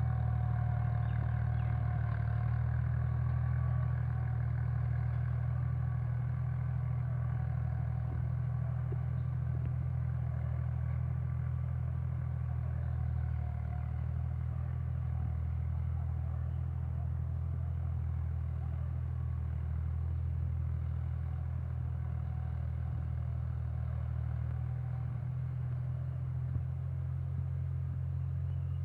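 Tractor's diesel engine running steadily under load while pulling a plough, a constant low drone that hardly changes in pitch.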